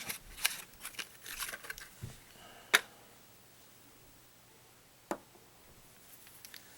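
Handling noise: light rustling and small clicks through the first two seconds, then a single sharp click almost three seconds in and another about five seconds in.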